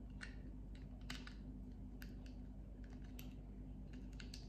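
Faint, irregular small clicks and ticks of a metal split key ring being worked open and twisted between fingers and fingernails.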